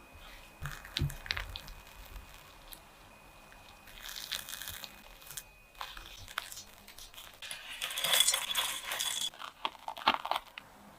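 Irregular handling noises: rustling and crinkling with light clinks and clicks, busiest about four seconds in and again from about eight to ten seconds in.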